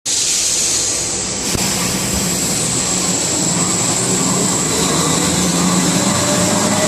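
A wrapping machine running steadily: a continuous mechanical whir with a high hiss and a low hum, with a faint tone joining near the end.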